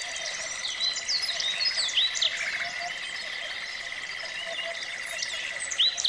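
Common nightingale singing: quick whistled notes and sharp down-slurred chirps, busiest about a second in and again near the end, over a steady high trill.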